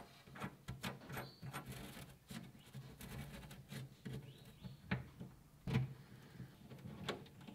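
Faint small clicks and taps of a lock barrel being fitted through a gas-box lid and its nut threaded on by hand, with two sharper knocks about five and six seconds in.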